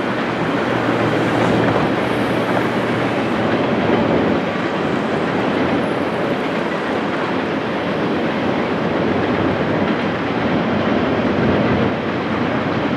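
Canadian National freight train rolling past, a steady, unbroken noise of steel wheels running on the rails.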